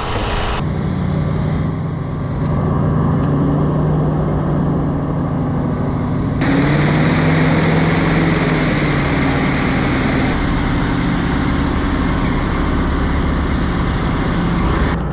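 An engine running steadily, its pitch drifting slightly up and down. The sound changes abruptly about half a second in, about six seconds in and about ten seconds in, where the footage is cut.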